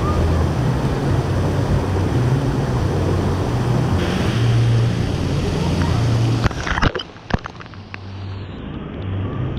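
Rushing, splashing water from a water-park splash pad, with wind buffeting the microphone. About six and a half seconds in, a few sharp knocks as the camera is handled, and the sound turns quieter and duller.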